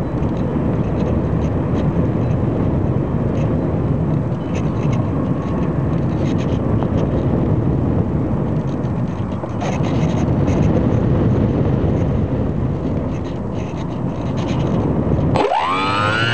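Model airplane in flight with a loud, steady rush of air over its onboard camera. Near the end the sound breaks off for a moment and the motor spins up in a quick rising whine that settles into a steady hum.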